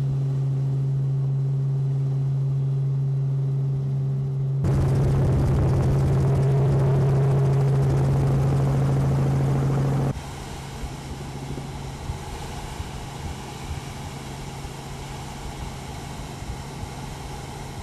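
Steady engine drone of an aircraft heard from on board: a low, even hum with a few higher steady tones. About four and a half seconds in it cuts to a louder, rougher rushing noise, and about ten seconds in it drops to a quieter, thinner drone.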